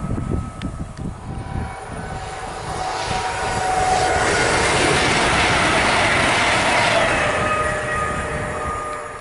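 CrossCountry Voyager diesel multiple unit passing at speed. Its rush of wheels and underfloor engines swells over a few seconds, holds loud with a steady whine for about three seconds, then fades quickly near the end.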